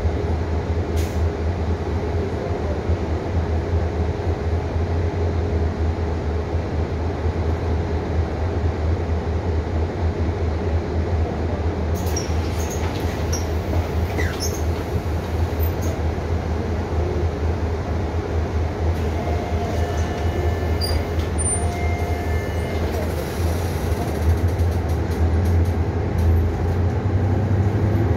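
City bus on the move, heard from inside the passenger cabin: a steady low engine and road rumble, a little louder near the end.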